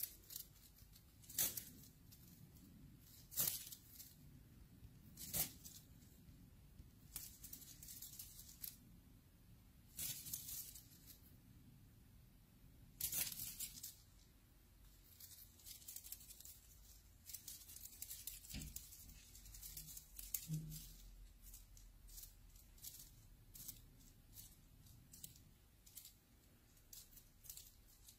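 Faint crinkling and rustling: three sharp crackles about two seconds apart, then denser crackling and many small scattered ticks, with one soft low thump about two-thirds of the way through.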